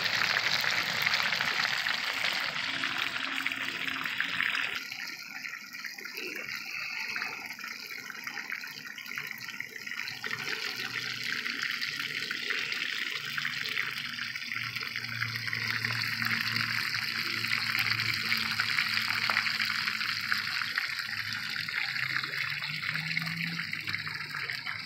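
Trout frying in olive oil in a pan, a steady sizzle that is louder for about the first five seconds, then softer.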